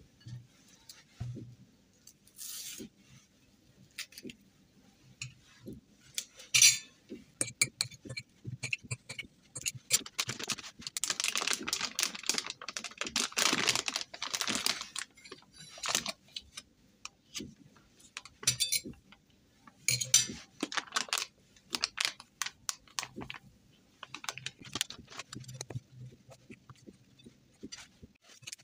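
Metal fork mashing banana in a ceramic bowl: repeated clinks and scrapes of the fork against the bowl. The strokes come thickest in a quick, busy stretch about a third of the way through.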